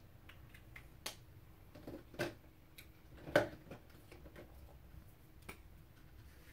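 A few small clicks and knocks from markers and paper being handled on a wooden tabletop. The two loudest come about two and three and a half seconds in.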